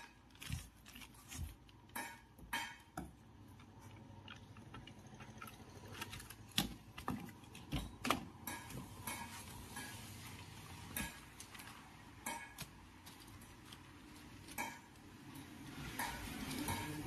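Scattered light clicks, taps and small metallic knocks of hands handling refrigerator tubing and aluminium foil tape while sealing the pipes to the panel, with some rustling near the end.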